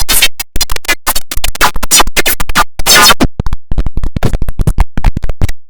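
Heavily edited audio chopped into rapid stuttering fragments, several short bursts a second, each cut off abruptly, giving a turntable-scratch-like effect.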